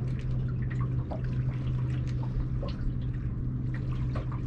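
Water dripping and lapping in small irregular splashes against a small boat, over a steady low hum.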